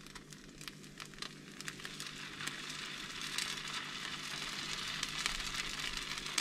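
Grated-potato pancake batter frying in hot oil in a pan: a steady sizzle with scattered crackles. It grows louder over the first few seconds as a second scoop of batter goes in.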